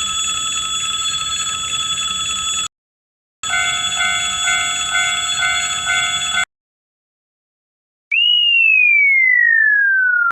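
Cartoon railroad-crossing bell sound effects: a steady ringing tone that stops, then a second crossing bell ringing in a pulse about twice a second. After a pause, a falling cartoon whistle slides steadily down in pitch.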